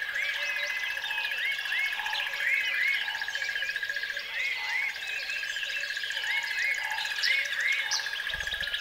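Dense wildlife chorus: a steady high-pitched trill with many repeated short bird chirps over it. A brief low thump near the end.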